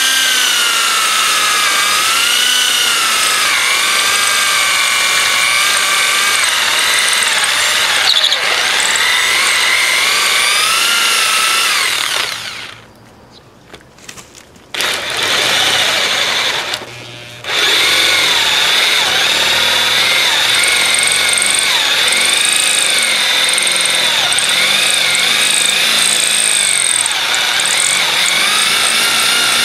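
Electric drill with a twist bit boring into a hard drive's platter: the motor whine wavers in pitch as it labours under load, hard going through the disc. It stops about twelve seconds in, runs again briefly, and restarts for good about five seconds later.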